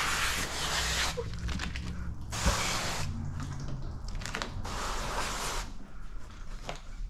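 Wet paint protection film being stretched and worked by hand over a truck fender: a series of bursts of rustling, sliding noise, three longer ones of about a second, over a steady low hum.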